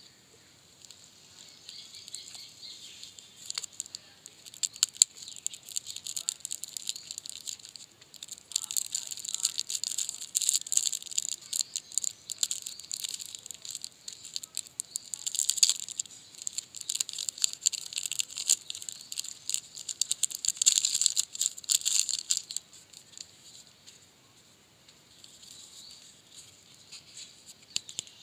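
Crinkling and crackling of the plastic wrap and cardboard of a Jetix peppermint chewing-gum pack as it is unwrapped and opened by hand. It comes in irregular spurts, loudest in the middle and quieter near the end.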